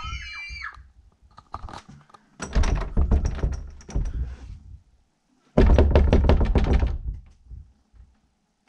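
Rapid, heavy knocking and pounding on a door in two bursts, the second louder, stopping about eight seconds in.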